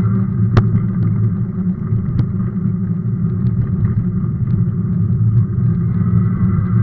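Steady low rumble of a Sondors electric fat bike riding over cracked, potholed asphalt, with a sharp knock about half a second in and a smaller one about two seconds in as it jolts over the broken surface.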